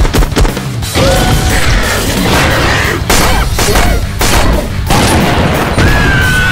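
Cartoon action soundtrack: loud music under a run of booms and crashes. Short squeaky, gliding cries sound between the hits.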